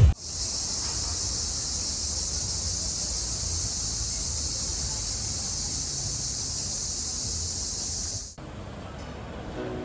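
A steady, high-pitched hiss over a faint low rumble, starting abruptly and cutting off sharply after about eight seconds.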